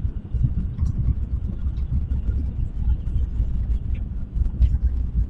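Tokaido Shinkansen running at speed, heard inside the passenger cabin: a steady, deep rumble with a few faint ticks and rattles.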